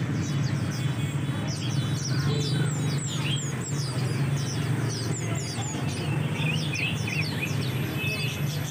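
Many small birds chirping and twittering in quick falling chirps over a steady low hum, with background music.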